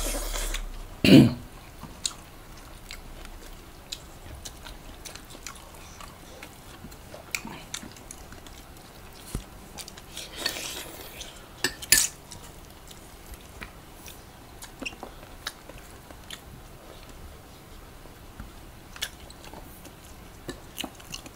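People eating chicken adobo with their hands: soft chewing and mouth sounds, with scattered clicks and clinks of dishes now and then. A louder knock comes just after a second in and a sharp click at about twelve seconds.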